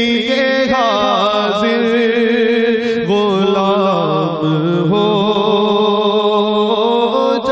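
A man singing an Urdu naat into a microphone, drawing out long, ornamented notes that slide up and down over a steady drone.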